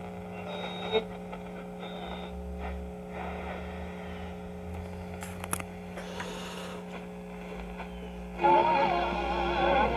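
1965 Admiral tube AM radio being tuned across the band: faint static and weak snatches of stations over a steady hum, until a station playing music comes in loudly about eight and a half seconds in.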